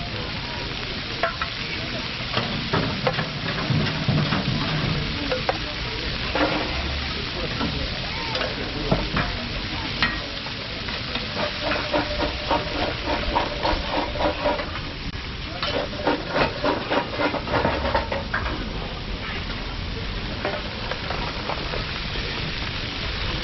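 Chicken sizzling on a hot flat-top griddle, with a metal spatula scraping and tapping against the steel as the pieces are worked. The taps and scrapes come thickest in a quick run in the middle.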